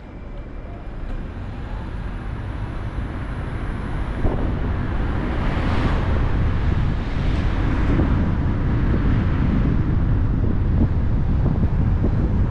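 A car driving along a road: steady tyre and wind noise with a heavy low rumble, growing louder over the first few seconds, with two brief swells of hiss near the middle.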